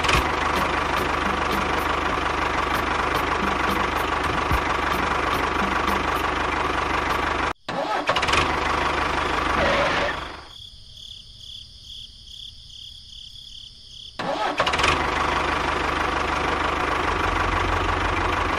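Small engine running steadily, broken off suddenly about two-thirds of the way through the first half. For a few seconds in the middle it gives way to a quieter, fast-repeating higher sound before the engine comes back.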